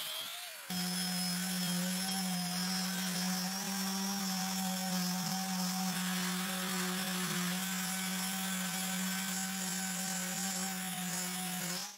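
Random orbital sander running steadily on a hardwood slab, its motor giving a constant low hum over the hiss of the pad on the wood. It starts abruptly just under a second in, after a fading angle-grinder sound.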